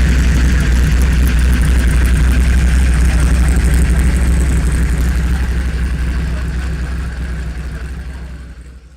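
Twin-turbocharged 5.0-litre Chevrolet 302 V8 idling with a deep, steady, pulsing note, fading away over the last few seconds.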